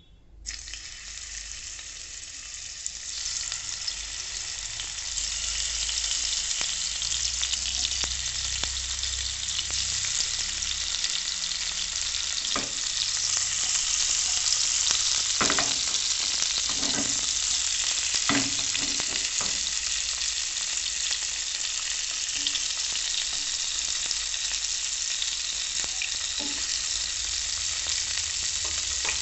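Raw pieces of snakehead fish sizzling as they are laid into hot oil in a frying pan. The sizzle starts suddenly and builds over the first few seconds as more pieces go in, then holds steady, with a few sharp pops of spitting oil midway.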